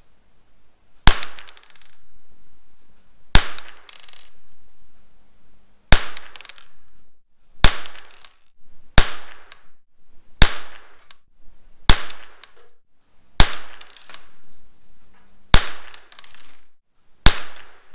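Rossi RS22 semi-automatic .22 LR rifle firing ten shots, one every one and a half to two and a half seconds, each a sharp crack followed by a short echo.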